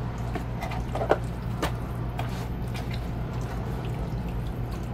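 Hands rubbing oil and seasoning into raw turkey thighs: wet squishing with small smacks and clicks, the sharpest about a second in, over a steady low hum.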